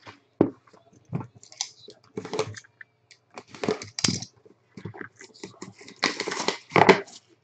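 Handling noise of trading cards and a hobby box: a few sharp knocks and clatters as card packs and the box are set down and picked up on the table, then the crinkling and tearing of the shrink-wrap being pulled off a Leaf Metal Draft baseball box, loudest near the end.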